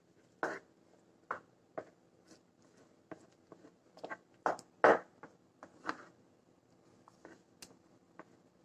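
Spatula stirring a thick, cooking rava (semolina) mixture in a nonstick pan: short scraping strokes at an uneven pace, roughly one or two a second, the loudest about halfway through.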